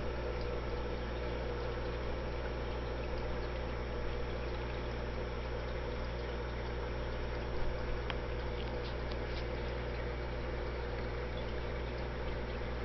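Steady low hum of an aquarium pump running, with a few faint ticks a little past halfway.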